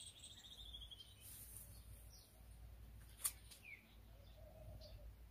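Faint bird calls: a falling trill at the start and a short chirp a little after the middle. A single sharp click comes about three seconds in.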